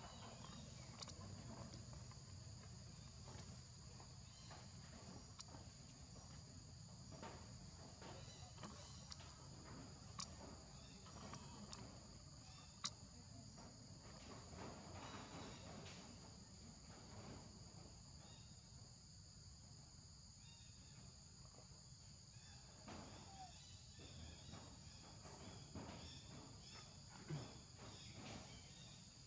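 A steady, faint, high-pitched insect chorus, two even tones held throughout, with scattered faint clicks and rustles and one sharper click about 13 seconds in.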